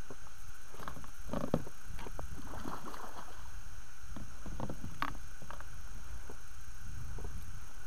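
Hooked pike splashing and thrashing at the water surface while being played on a spinning rod, in irregular bursts: a cluster about a second in and another around five seconds in, over a steady low rumble.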